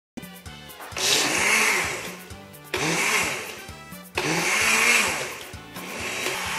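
Black & Decker Fusion Blade blender blending a liquid custard base of milk, sugar, egg yolks and cornstarch. It is pulsed three times, each burst starting abruptly and dropping away as the motor slows, then runs steadily near the end.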